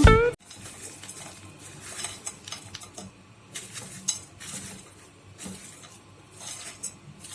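Scattered light clinks and scrapes of kitchen dishes and utensils being handled, irregular and fairly faint.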